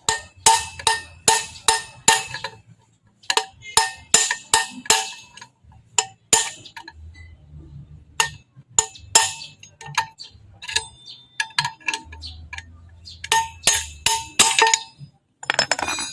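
Sharp metal-on-metal hammer strikes, each with a brief ring, in runs of several blows a few per second with short pauses between runs: the old front wheel bearing of a Raider 150's mag wheel is being driven out of the hub. The bearing is worn, rusty and rough-running.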